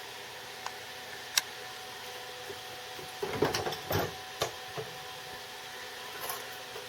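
A few sharp clicks and a short clatter of knocks, like tools and a copper light fixture being handled and set down on a workbench, loudest in a burst from about three to four and a half seconds in. A steady faint hum runs underneath.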